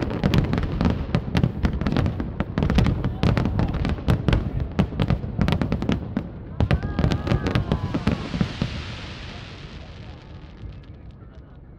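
Aerial fireworks shells bursting in a fast, dense barrage of sharp bangs, many a second, that thins out and fades away about two-thirds of the way through.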